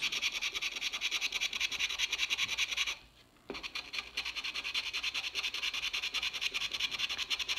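Coin scraping the coating off a scratch-off lottery ticket in rapid, even strokes, with a half-second pause about three seconds in.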